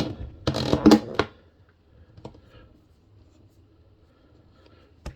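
Plastic lid and housing of a resin-print wash station being handled and fitted shut: about a second of rustling and clattering at the start, then a few small clicks and one sharp click near the end.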